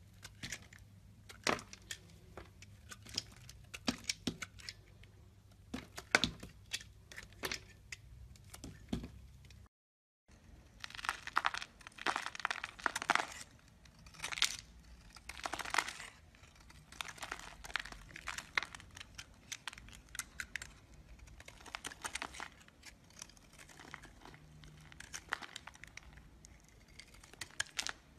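Utility knife blade cutting into bars of soap, with sharp cracks and crumbles as pieces snap off. After a brief gap about ten seconds in comes a run of longer scraping strokes, each about a second, as the blade shaves a bar into flakes.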